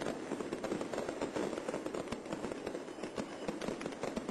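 Crowd hubbub at a bonfire-night street procession, with frequent sharp cracks of firecrackers going off throughout.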